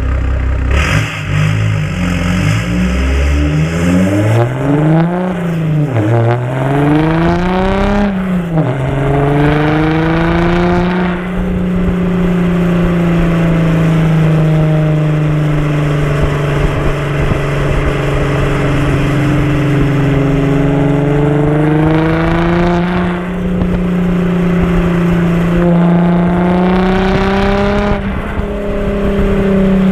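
Audi A5 3.0 TDI V6 diesel through an open exhaust, accelerating: the engine note climbs and drops back through several gear changes in the first eight seconds or so. It then holds a steady drone at cruising speed, rising and falling a little.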